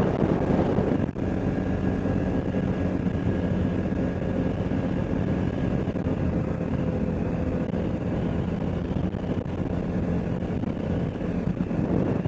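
CFMoto ATV engine running at a fairly steady speed, with a brief drop about a second in.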